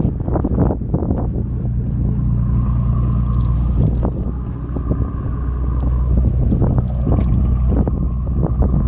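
An engine running steadily at idle, with a constant low hum, and a few faint clicks over it.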